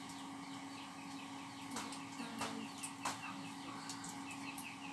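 Small bird chirping faintly and repeatedly, about three high chirps a second, over a steady low hum. A few light clicks of a spatula against a frying pan come around the middle.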